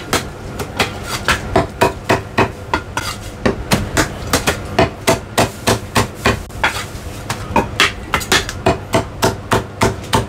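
Heavy cleaver chopping roast meat through skin and bone on a thick round wooden chopping block: quick sharp strikes, about three or four a second.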